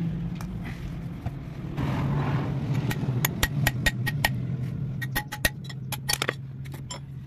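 Sharp metallic clicks and taps, a quick run of them in the second half, as a Massey Ferguson 375 rear wheel hub housing is handled and turned over. Underneath, a steady low engine-like hum.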